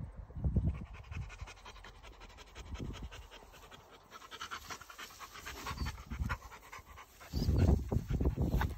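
Dogs panting close to the microphone in quick, even breaths, with a loud low rumble about seven and a half seconds in.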